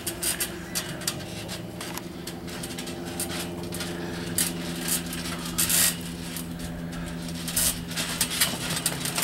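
Irregular thumps, knocks and rustles of bodies moving on a backyard trampoline mat, over a steady low hum.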